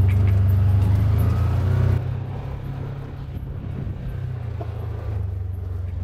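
Side-by-side utility vehicle driving across a field, its engine running with a steady low drone. The sound drops abruptly in level about two seconds in, then carries on quieter.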